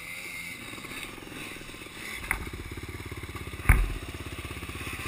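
Dirt bike engine running at idle with a fast, even pulse that gets louder about two seconds in. Two sharp knocks come over it, the second and louder one a little past halfway.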